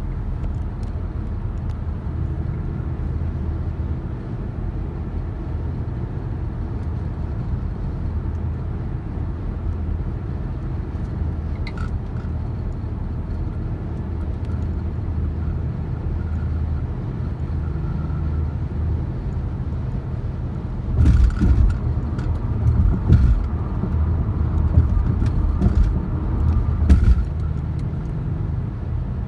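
Vehicle driving at road speed, a steady low drone of engine and road noise. About two-thirds of the way through comes a run of loud knocks and rattles lasting several seconds.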